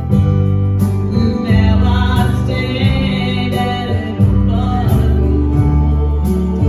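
Gospel song played by a live band: bass notes and guitar under it, with regular drum or cymbal hits keeping the beat.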